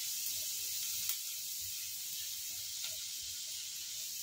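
Finely chopped garlic sizzling in hot oil in a nonstick frying pan on high heat, a steady high hiss. Two short sharp clicks, about a second in and near three seconds, as it is stirred with a silicone spatula.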